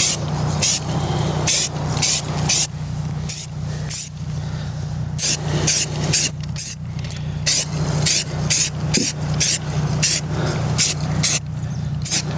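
Aerosol spray-paint can spraying a light base coat in short strokes, about two quick hisses a second, over a steady low hum.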